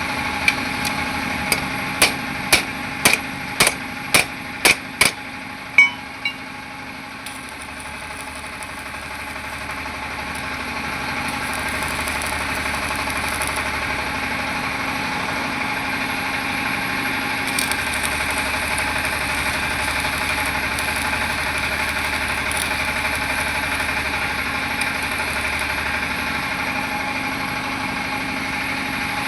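About a dozen sharp metal taps, like hammer strikes, roughly two a second over the first six seconds. Under them a steady mechanical hum with a fixed pitch runs throughout.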